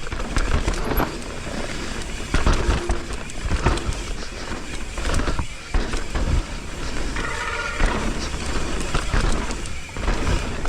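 Mountain bike riding over a dirt trail: tyres on dirt and the bike clattering over bumps, with a steady low rumble of wind on the microphone.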